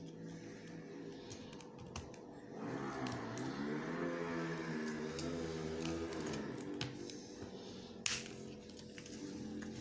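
Light scattered clicks of oyster shells being handled, with one sharp knock about eight seconds in, over background music whose wavering melody swells in the middle.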